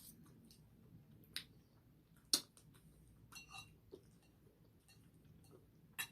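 Quiet eating: a few light clicks and taps of utensils against dishes, the sharpest about two seconds in, over faint chewing.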